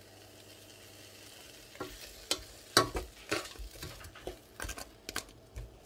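Wooden spoon stirring chopped leeks, potatoes and nettles in a pot, sautéing in oil. Irregular scrapes and knocks start about two seconds in.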